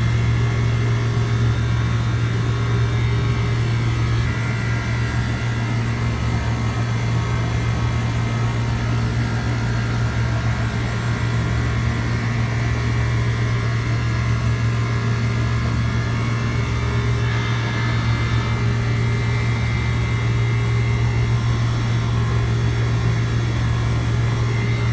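Outdoor air-conditioning condensing unit running: a steady low compressor hum with the rush of the condenser fan.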